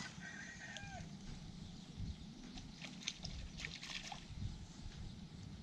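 Faint outdoor ambience: a steady low rumble, a brief animal call in the first second, and a few light clicks and rustles around the middle.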